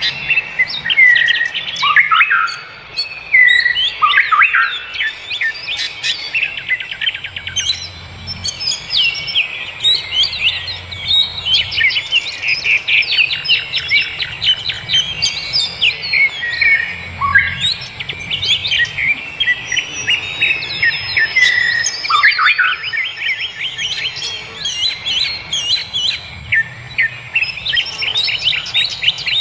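Many small birds chirping and singing at once in a dense, continuous chorus of quick overlapping tweets and trills, with an occasional downward-sliding whistle.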